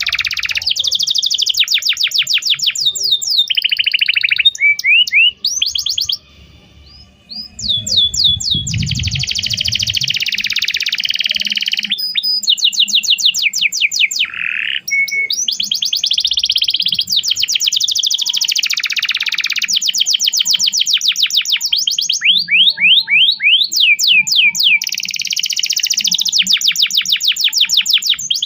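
Domestic canary singing long, fast trills of rapidly repeated chirping notes, the phrases running one into the next, with a short pause about six seconds in.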